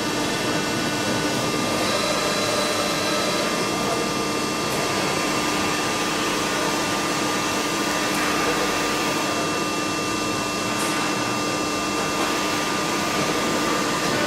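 Soraluce FP 8000 CNC travelling-column milling machine running: a steady mechanical whine of several held tones over an even rushing noise.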